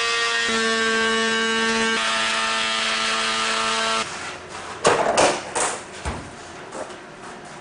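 Small corded handheld power tool cutting through vinyl plank flooring, a steady motor whine that steps up slightly in pitch about half a second in and cuts off about four seconds in. Then a few loud clacks and scrapes as the cut vinyl planks are pulled up off the concrete.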